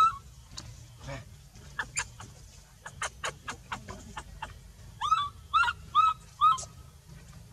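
Baby macaque crying: four short, high, arching calls about half a second apart, about five seconds in, with one more call right at the start. Before them comes a run of short, sharp ticks.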